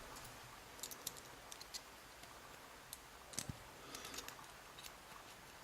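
Faint, scattered small clicks and taps of metal lock parts and tools being handled as a lock is taken apart, with one slightly louder knock about three and a half seconds in.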